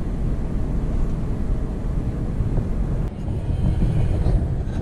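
Scania R500 truck's diesel engine pulling a heavy load of about 25 tons, a steady low drone heard inside the cab. About three seconds in the sound changes abruptly to a deeper, duller mix of the same engine running.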